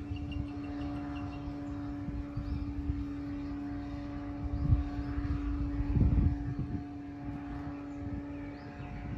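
Steady, even drone of a distant engine, with wind rumbling on the microphone in gusts, strongest about five and six seconds in.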